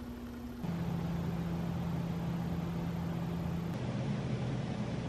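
Steady low machine hum with one clear pitch, stepping to a lower pitch and louder about half a second in, and changing again to a deeper, mixed hum near four seconds in.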